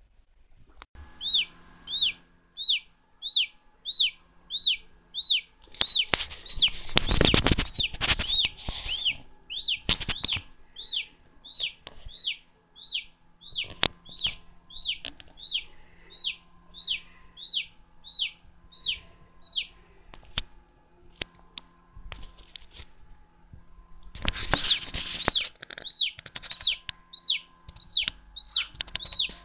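Newly hatched cheonggye (green-egg chicken) chick peeping: a steady run of high, sharp peeps, about two a second. A rustling, scraping noise joins in twice, about six seconds in and again near the end.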